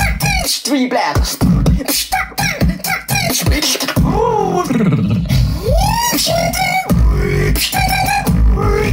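Solo beatboxing: a fast run of mouth-made kick, snare and click sounds, then from about halfway a sustained low bass with vocal tones sliding up and down in pitch over it.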